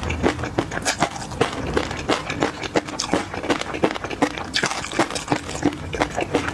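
Close-miked chewing with the mouth closed: irregular crunching, several crunches a second, of a mouthful of chopped peanuts in peanut sauce with whole garlic cloves.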